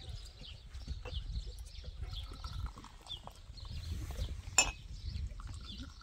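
Outdoor ambience of wind rumbling on the microphone and repeated short, high chirps, while tea is served into glass cups from a porcelain teapot; a single sharp clink of glassware about four and a half seconds in is the loudest sound.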